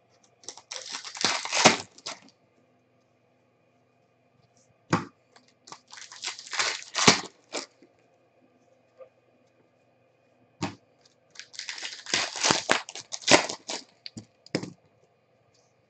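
Plastic card sleeves and holders crinkling and rustling as trading cards are handled and sleeved, with sharp clicks. It comes in three spells: at the start, around the middle, and a longer one near the end.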